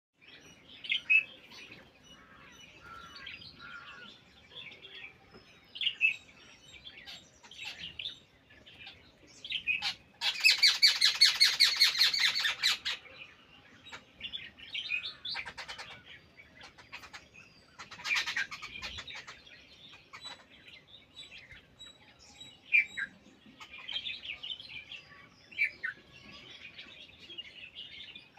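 Small birds chirping and calling on and off, with a loud, rapid chattering call about ten seconds in that lasts nearly three seconds.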